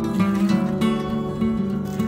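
Background music: plucked and strummed acoustic guitar.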